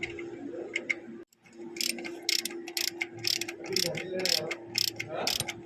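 Hand ratchet wrench clicking as bolts are turned, about three to four clicks a second after a brief drop-out a second in, over a steady background hum.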